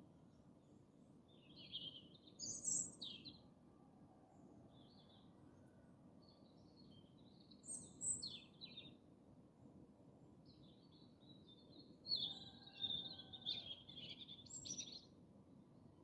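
European robin singing: three separate high-pitched song phrases a few seconds apart, the last one the longest. A faint steady low hum runs underneath.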